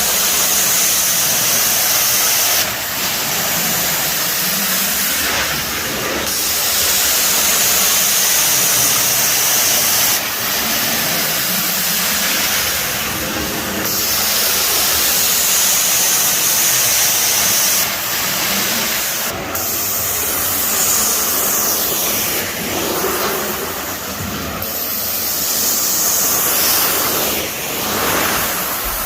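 Carpet-cleaning wand fed by a Mytee Escape truckmount doing hot-water extraction passes: a loud, steady hiss of spray and suction, broken by short dips every few seconds as each stroke ends and the next begins.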